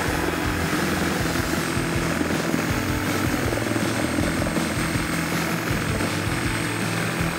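Corded power saw running steadily as it cuts through the plastic end of a Jeep Wrangler's factory front bumper.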